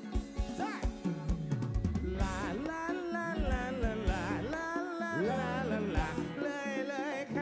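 Live band music over a concert PA: drum and percussion hits with a male singer's voice sliding up and down over them.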